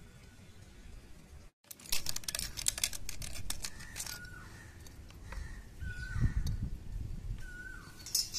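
Hands handling the plastic fittings of a monoblock water pump, a quick run of clicks and rattles followed by scattered knocks. A short high call with a falling tail repeats about every second and a half in the background.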